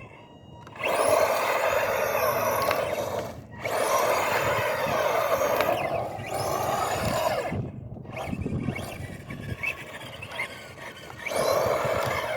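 Arrma Senton 4x4 RC truck running on a 3S battery: its brushless motor whines and its tyres rush in repeated full-throttle runs. The runs come about a second in, again around three and a half seconds, a shorter one winding down around seven seconds, and a last one near the end.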